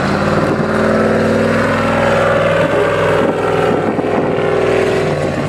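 Range Rover P38's engine running hard at high, nearly steady revs as the 4x4 climbs a steep grassy slope under load, dropping away right at the end.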